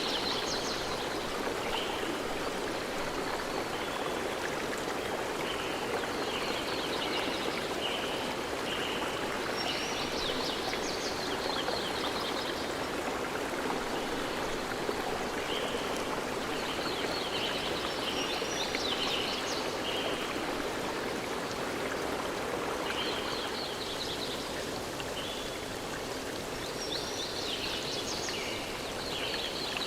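A stream of running water rushing steadily, with bouts of high chirping every few seconds from birds.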